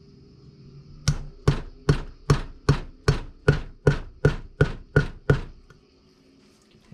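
About a dozen sharp taps at an even pace, roughly two and a half a second, on a valve stem seal installer, driving a new seal down over the valve guide of a GM L76 LS cylinder head. The taps stop after about five seconds; the tool bottoming out is the sign that the seal is fully seated.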